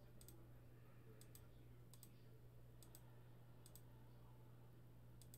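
Faint computer mouse clicks, mostly in quick pairs, every second or so, over a low steady hum.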